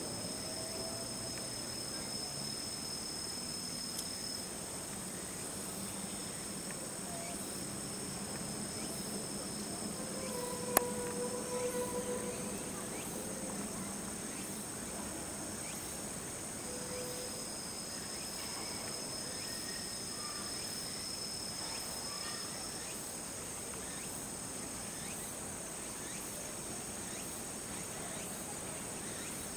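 Steady, high-pitched chorus of insects chirring. About eleven seconds in there is a single sharp click, followed by a brief faint pitched call.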